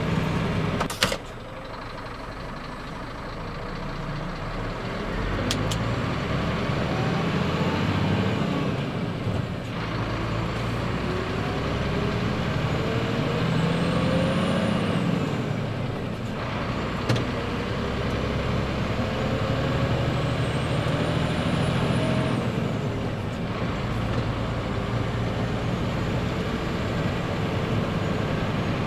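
Scania R114 380 truck's inline-six diesel engine heard from inside the cab, pulling up through the gears. The engine note rises steadily, then dips briefly at each of three gear changes. A sharp click about a second in.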